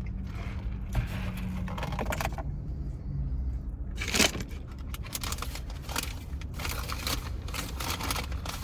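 Irregular rustling, crinkling and scraping of takeout food packaging and plastic containers while eating, with scattered clicks and one sharper knock about four seconds in, over a low steady hum.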